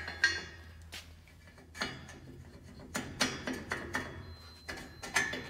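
Steel band peg knocking and clicking against the squat rack's base as it is pushed into its hole and secured: a series of short, irregular metallic knocks.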